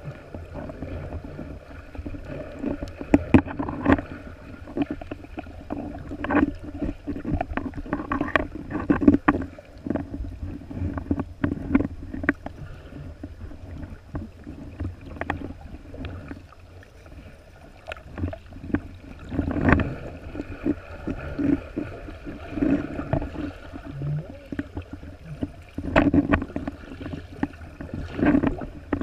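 Muffled water sound heard from a microphone underwater: a steady low rumble of moving water with irregular clicks and knocks throughout.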